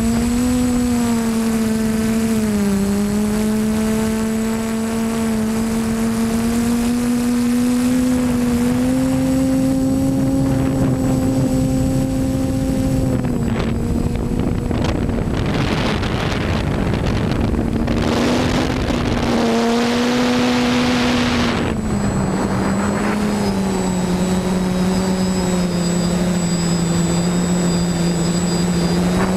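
Multirotor drone's propellers whining steadily, the pitch stepping slightly up and down as it manoeuvres. Around the middle a rush of wind noise swells and partly covers the whine, then the whine settles a little lower in pitch near the end.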